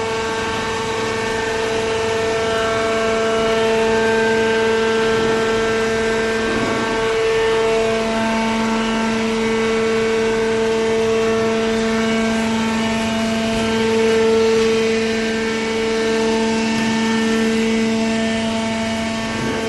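Horizontal cardboard baler's hydraulic power unit running, a steady machine hum that changes slightly in tone about seven seconds in.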